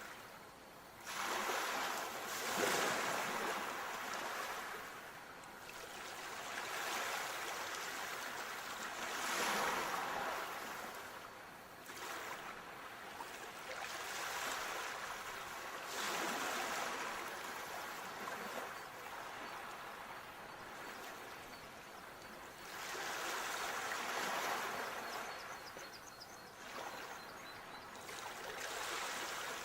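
Sea waves washing in and drawing back in repeated surges, each swell rising and fading over a few seconds.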